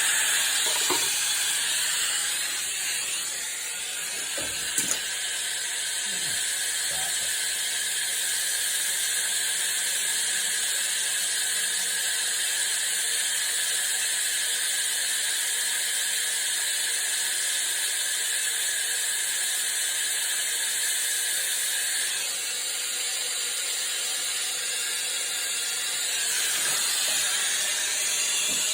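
Soldering torch flame burning with a steady hiss, with a few light clicks and knocks in the first five seconds.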